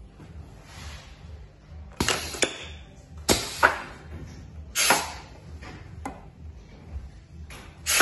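SBM-1 stretcher bar assembly machine actuating as its panel switch is worked: a series of sharp clunks, each trailed by a brief hiss, about five in eight seconds, the loudest around the middle and near the end.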